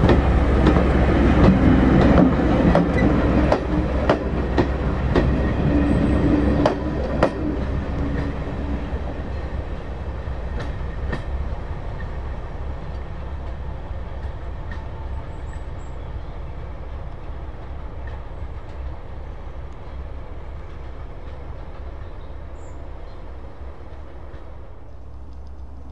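Passenger coaches of a diesel-hauled heritage train rolling past, wheels clicking over rail joints. The rumble and clicks fade steadily as the train pulls away, and the clicks die out after about seven seconds.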